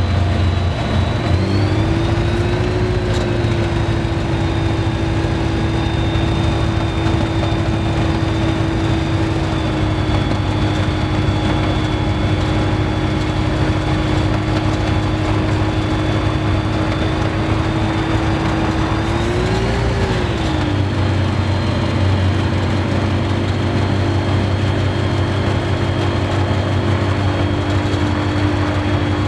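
Rotax 912ULS four-cylinder boxer engine and propeller of an ultralight running steadily at low power while taxiing on grass, heard from inside the cockpit. About 20 seconds in the engine speed briefly rises and falls, then settles slightly lower.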